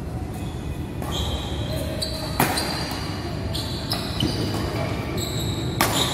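Badminton racket strikes on a shuttlecock during a doubles rally: two sharp hits about three and a half seconds apart. Short high squeaks, typical of court shoes on the floor, come between them.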